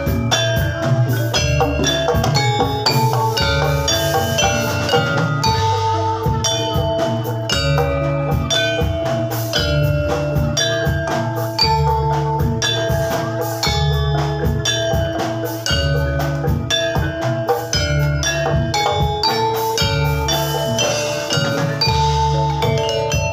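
Live Javanese gamelan music for a jathilan horse-trance dance: bronze metallophones ring out a dense, continuous run of struck notes over steady low drum strokes.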